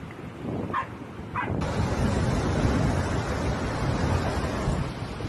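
Muddy floodwater rushing down a city street, a loud steady rush that starts after a cut about a second and a half in. Before it, over quieter background noise, come two short high yelps about a second in.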